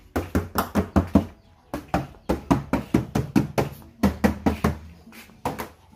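Knuckles tapping in quick bursts on the steel body panels of a 1990 Honda Grand Civic, trunk lid and door, checking that the body is sound metal all round.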